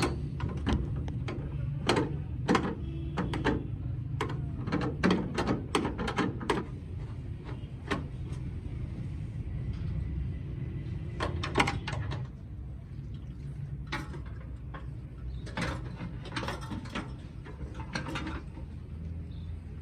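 Irregular clicks and knocks of hand tools working on a car, over a steady low hum.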